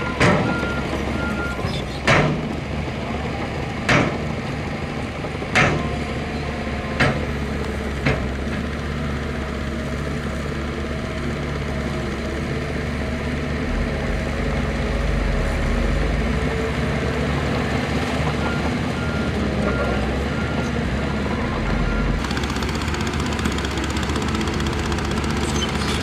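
Heavy diesel construction machinery running, with a reversing alarm beeping in short, evenly spaced pulses at the start and again for a few seconds later on. Over the first eight seconds, six sharp knocks about every one and a half to two seconds are the loudest sounds.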